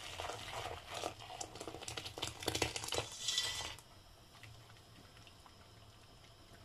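Hot tamarind and sugar syrup poured from a steel pot through a plastic colander into a bowl: splashing and trickling with light clinks, stopping about four seconds in.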